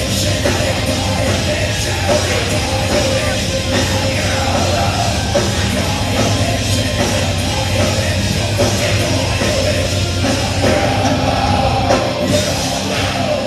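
Live rock band playing loud: distorted electric guitars, bass and drums, with a singer shouting the vocals, heard from the audience floor of a club.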